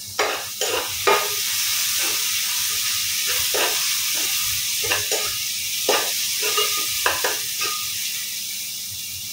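Food frying in oil in a pan with a steady sizzle, while a spatula stirs and scrapes against the pan repeatedly, about every half second.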